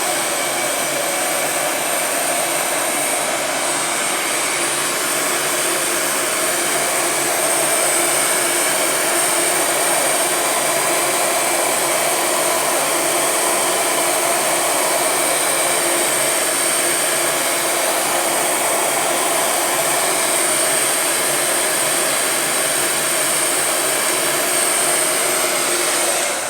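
Electric heat gun blowing steadily while it shrinks a gel-lined heat-shrink tube over a crimped motor-lead splice; it cuts off at the end.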